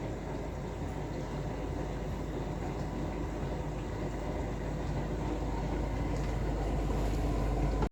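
Steady machine hum with a low electrical drone, slightly rising in level, that cuts off suddenly near the end.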